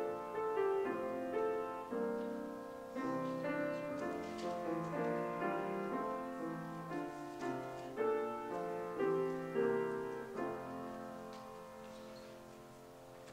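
Piano playing slow block chords, each chord struck and then dying away, with the last chord fading out near the end.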